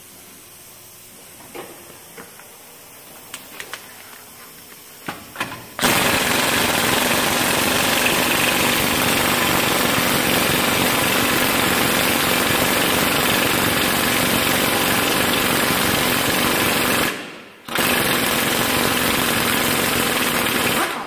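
Pneumatic impact wrench hammering on the lower ball joint nut of a pickup's front steering knuckle. It runs without a break for about eleven seconds, stops for half a second, then runs again for a few seconds more. A few light clicks come before it starts.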